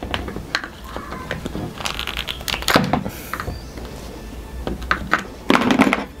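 Irregular light clicks and knocks of handling: the green plastic housing of a Hitachi 9.6 V cordless impact driver turned in the hands, and flush-cut pliers set down on a cutting mat.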